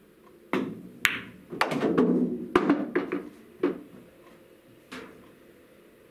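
Pool shot: a cue strike, then a sharp click of cue ball hitting object ball about a second in, followed by a run of knocks and rumbling as the balls strike cushions and drop into a pocket. A single light click near the end as the cue ball is set back down on the cloth.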